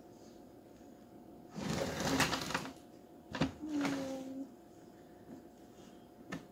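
The plastic water tank of a Bissell Little Green ProHeat portable carpet cleaner being handled and lifted off its base: two bursts of plastic scraping and rattling, about two seconds in and about three and a half seconds in, and a light click near the end.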